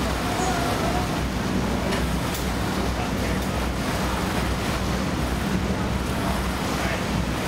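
River cruise boat's engine running steadily with a low hum, under a wash of water and wind noise on the microphone.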